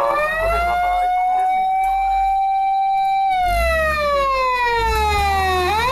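Emergency vehicle siren wailing: the tone climbs, holds, then sinks slowly before sweeping sharply up again near the end, over a low rumble.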